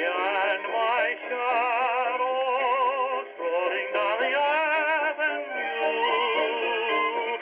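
A 1920s dance-band record, a Columbia Viva-tonal 78 rpm disc, playing on an acoustic phonograph: thin, narrow-range music with nothing below about 200 Hz or above about 3.5 kHz, and a wavering vibrato melody line.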